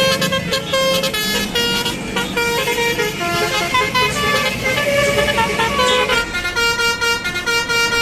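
Bus 'telolet' multi-tone melody horn playing a tune of held notes that change pitch every half second or so.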